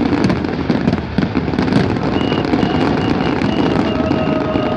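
Fireworks display: many aerial shells bursting at once, a dense continuous crackle over low thumps. A high, evenly pulsing beep joins in about halfway through.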